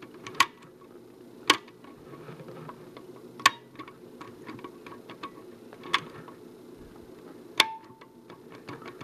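Push-button switches of a Fluke 8010A bench multimeter clicking as they are pressed and released by hand, five sharp clicks a second or two apart with fainter ones between; the last click rings briefly. Two of the switches in the bank are faulty and fail to latch in.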